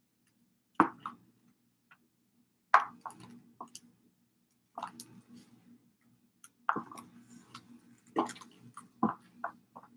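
Stiletto heels clicking on a tiled floor: single sharp heel strikes about every two seconds, then several quicker ones near the end.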